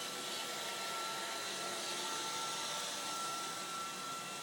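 Roomba robot vacuum running while cleaning: a steady whirring hum with a thin, steady high tone over it.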